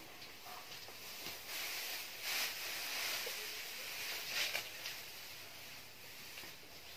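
Dry straw fodder rustling as it is scooped up in armfuls by hand, with two louder surges, one about two seconds in and one about four and a half seconds in.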